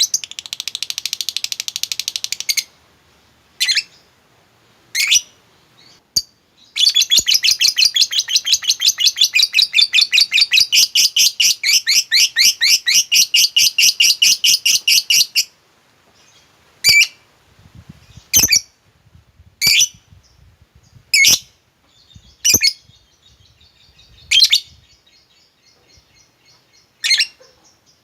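Lovebird ngekek: a long, fast chattering trill of sharp, high, repeated notes, lasting about eight seconds in the middle, with a shorter run at the start. Between and after the runs come single sharp chirps about every second and a half.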